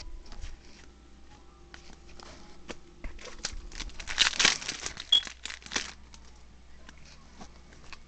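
Yu-Gi-Oh! trading cards handled and flipped through by hand, sliding and clicking against each other. A louder burst of crinkling about four seconds in lasts roughly two seconds.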